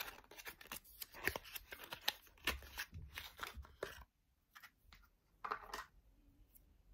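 A small cardboard cosmetics box being opened by hand: a quick run of scratchy paper rustling and tearing for about four seconds, then a few brief handling sounds as the lip tint is taken out.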